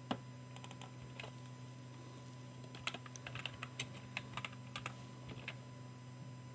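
Typing on a computer keyboard: a few separate clicks in the first second or so, then a quick run of keystrokes from about three seconds in, over a faint steady low hum.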